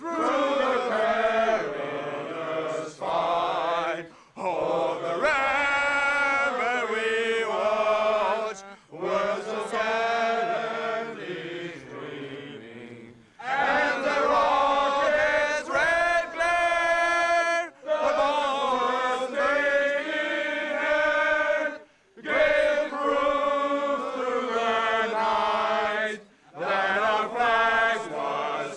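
A group of voices singing a slow chant together, unaccompanied, in phrases of about four seconds with short breaks between them.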